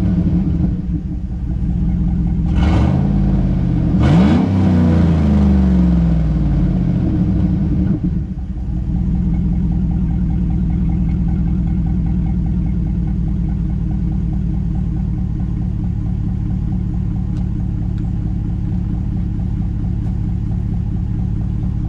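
Chevy Silverado pickup engine revved, falling back in pitch with two quick blips of the throttle, then settling into a steady idle about eight seconds in. It runs with its exhaust pipe fallen off, just after a Seafoam intake cleaning.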